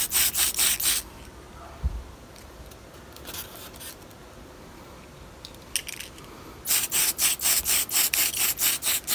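Tamiya aerosol spray can spraying paint in quick short bursts, a hiss pulsing about five times a second, for about a second at the start and again for the last two and a half seconds. A dull thump comes about two seconds in.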